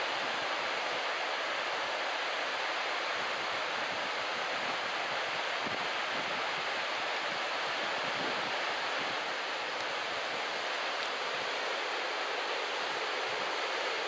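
Steady, even hiss of ocean surf washing ashore.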